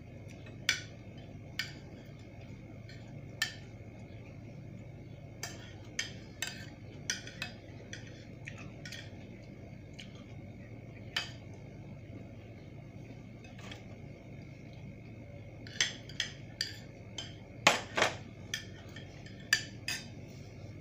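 Metal spoon clinking and scraping against a plate as rice is scooped up, in irregular sharp taps, with a run of louder clinks near the end. A faint steady high tone sits underneath.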